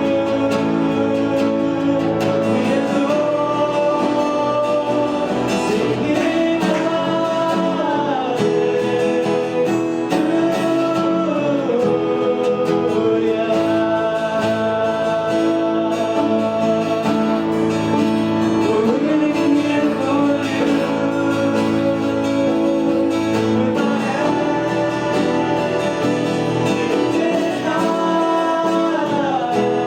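Live church worship band music with guitar, continuous throughout, with a held melody line that slides between notes several times.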